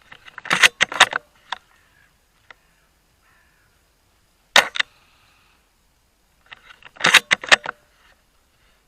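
Airsoft gunfire: three short clusters of sharp pops and clacks, one about half a second in, one in the middle and one near the end, each a few quick hits.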